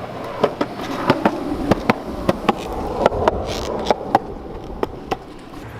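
Skateboard rolling down a sidewalk: a rumble of wheels on pavement with many sharp, irregular clacks, the rumble strongest in the middle of the run.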